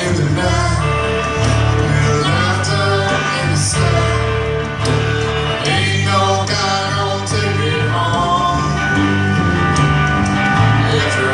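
Blues-rock band playing live, with guitar among the instruments.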